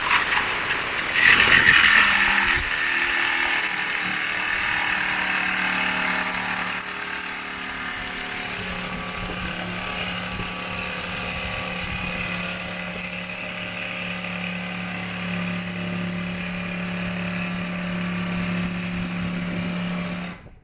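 Milwaukee M12 2445-20 cordless jigsaw cutting through 1.5 inches of stacked plywood, its blade barely as long as the stack is thick. The steady cutting buzz with a low hum is loudest in the first couple of seconds and stops suddenly near the end.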